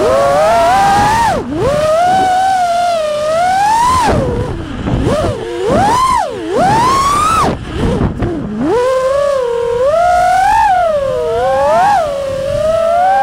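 FPV freestyle quadcopter's brushless motors and propellers whining, the pitch sweeping up and down as the throttle is pushed and eased, with several brief throttle chops where the pitch dips sharply and swings back up.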